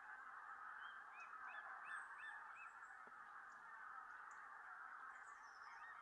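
A distant flock of bean geese calling continuously, a faint steady chorus of honking. A short run of higher yelping notes comes about a second in and again near the end, typical of white-tailed eagles calling in display.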